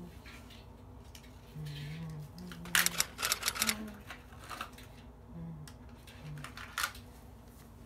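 Small clicks and light rattling of objects being handled by hand, in a dense cluster about three seconds in and a couple of single clicks later.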